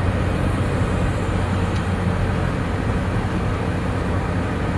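Excavator's diesel engine running steadily with a constant low hum.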